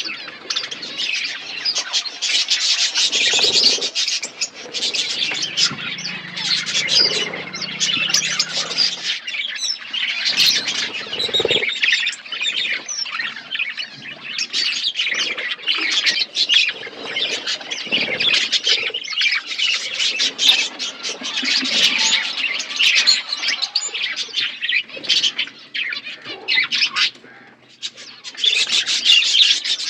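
A flock of small pet birds chirping continuously, many short high calls overlapping.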